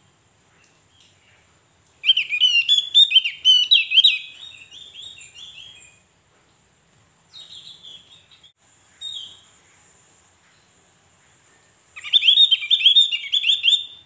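Javan grey-throated white-eye (opior Jawa) singing: a loud burst of rapid, repeated sweeping notes about two seconds in that lasts some four seconds and tails off, a few softer calls in the middle, and another loud burst near the end.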